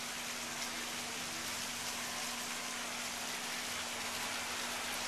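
A steady, even hiss of outdoor noise with a faint, steady low hum underneath.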